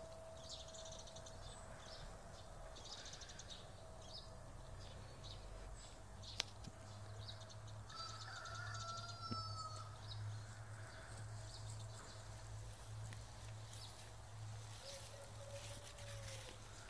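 Quiet rural outdoor background: a low steady hum, one sharp tick about six seconds in, and faint bird calls, the clearest a short gliding call about eight seconds in.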